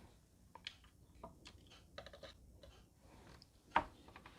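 Faint, scattered clicks and taps of small gears being handled and fitted into a Honda CR-V side mirror's folding-motor gear housing, with one louder click near the end.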